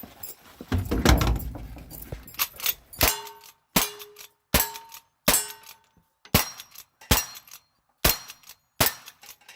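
Cowboy action shooting: a loud, deep thud with a rattle about a second in, then eight gunshots at a little under one per second. The first four are each followed by a short ring of a steel target being hit.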